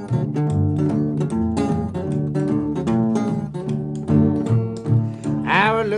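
Blues song in an instrumental passage between verses: acoustic guitar picking over a bass line.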